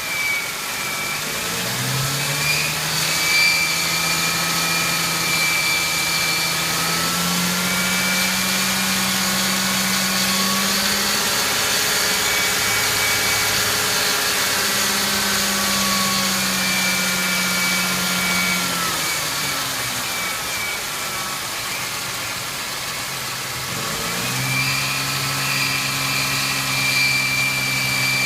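1999 Ford Mustang's 3.8-litre V6 running with a high-pitched squeal from the engine, the engine speed rising, holding and falling slowly a couple of times. The squeal is strongest near the start and again when the engine settles near the end.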